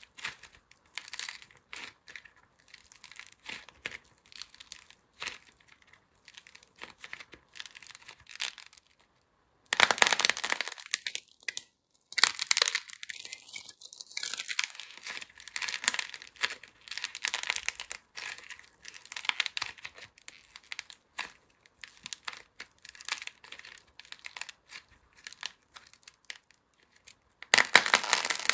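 Dried clay coating on soap cracking and crumbling as hands squeeze and tear it apart: dense, crisp crackling. It pauses briefly about a third of the way in, then comes back louder.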